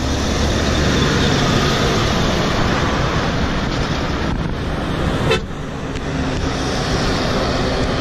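Heavy loaded lorries passing close by one after another: a steady rush of diesel engine and tyre noise, with a horn toot in greeting.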